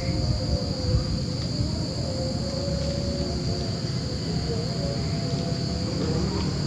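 Crickets chirping in a steady, unbroken high-pitched chorus at night, over a low rumble.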